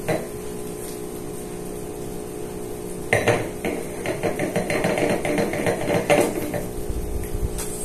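Stemmed wine glass swirled with its foot on a wooden tabletop: a quick, uneven run of small knocks and rubs of the glass base against the wood, starting about three seconds in and lasting some four seconds.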